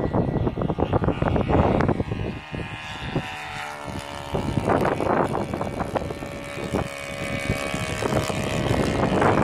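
Large RC Piper Cub's 160-size twin-cylinder four-stroke nitro engine running steadily in flight, a droning engine note. Gusts of wind rumble on the microphone near the start and again about five seconds in.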